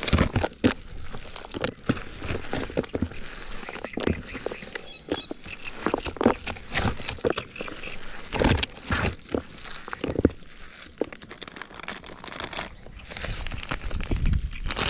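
Fishing gear being handled while setting up: irregular knocks, clicks and rustling.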